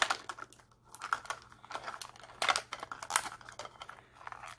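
Irregular light plastic clicks and crinkling as a Mini Brands capsule ball and its wrapped miniature are handled and opened by hand, with a couple of louder clicks past the middle.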